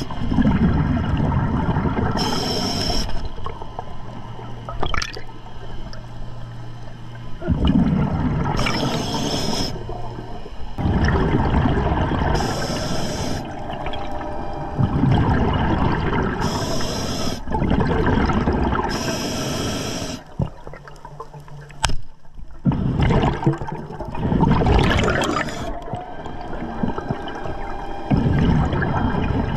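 Diver breathing through an Atomic scuba regulator underwater: a short hiss at each inhale, about five times, each followed by a long gurgling rush of exhaled bubbles. A low steady hum runs under the breathing for several seconds in the first third.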